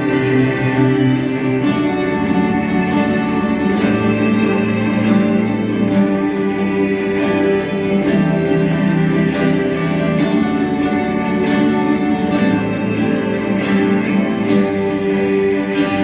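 Background music with plucked guitar-like strings, steady throughout.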